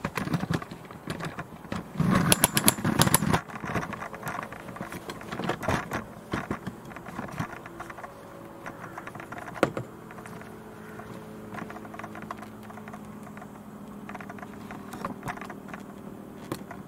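Handling noise from a handheld camera being moved about: a run of clicks, taps and knocks, densest and loudest about two to three seconds in, thinning out after that, with a faint steady hum in the second half.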